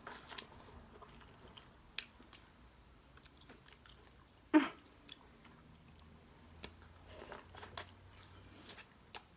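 People eating a seafood boil of crawfish, shrimp and corn, chewing and biting, with scattered small clicks and crunches and one loud, sharp click about four and a half seconds in.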